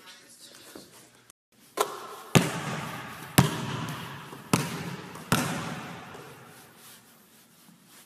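A basketball bouncing on a gym floor, five hard bounces about a second apart, each ringing out in the hall's echo.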